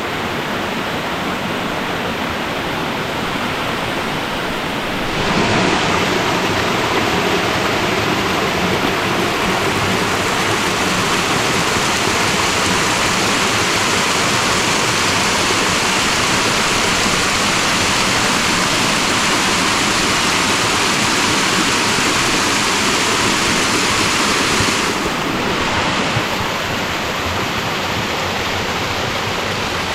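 Davids Falls (Shiprock Falls) on the upper Catawba River: a steady rush of water pouring over rock ledges. It grows louder and brighter about five seconds in and drops back near the end.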